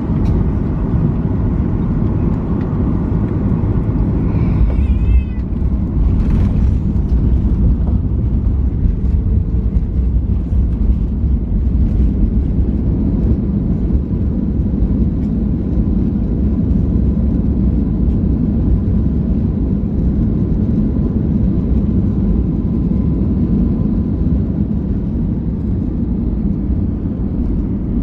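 Boeing 737 MAX 8 cabin noise during final approach and landing: a steady low rumble of the CFM LEAP-1B engines and airflow over the airframe, with the spoilers raised on the runway near the end.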